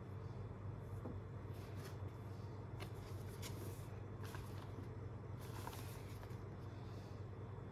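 Packaging being handled: irregular rustling and scraping of the gaming mouse's box and wrapping, coming in short bursts, over a steady low hum.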